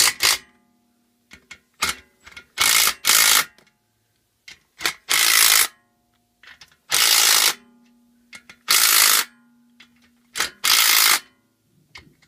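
Cordless impact driver running in crankcase cover bolts on a Honda GXV160 engine, in repeated bursts of under a second with short pauses between, about five longer runs and a few brief blips.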